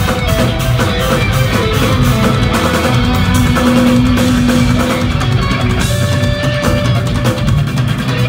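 Instrumental progressive metal played live and loud: eight-string electric guitars over a busy drum kit, with a held low guitar note in the middle.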